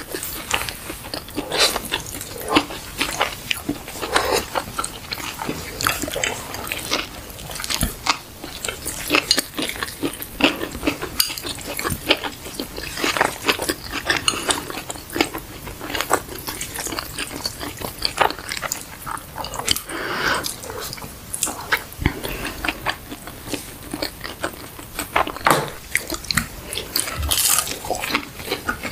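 Close-miked eating: two people chewing and biting into fast food and noodles, a dense, irregular run of wet mouth clicks and crunches.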